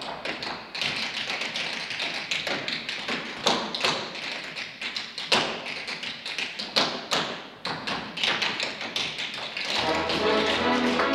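Tap shoes of a group of dancers striking a stage floor in quick, uneven rhythmic patterns, a tap break with sharp clicks and heavier stamps. Near the end, music comes in under the taps.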